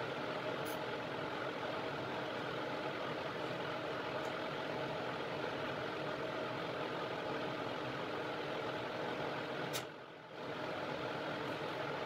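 Steady fan whir with a few steady tones in it, dropping away briefly with a click about ten seconds in.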